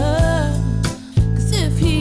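Background song: a sung melody over steady bass notes. The music dips briefly about a second in, then comes back in sharply.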